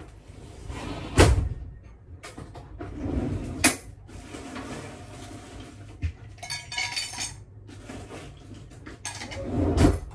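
Knocks, bumps and light clatter of things being handled in a boat's galley, with some rustling and a brief clink. The loudest knocks come about a second in and near the end.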